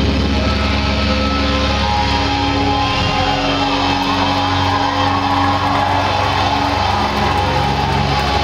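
Live rock band playing loud, with electric guitars holding long, ringing notes and chords.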